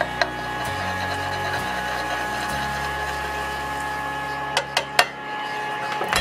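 Background music with held notes over a low bass line that changes every second or so, with a few sharp knocks about four and a half to five seconds in.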